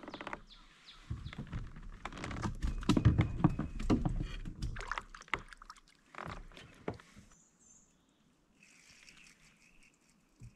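Knocks, clatter and low thumps of handling gear and a fish against a plastic fishing kayak's hull, loudest a few seconds in. A short burst of sound about six seconds in, as a crappie is lowered into the water beside the kayak, then only faint rustling.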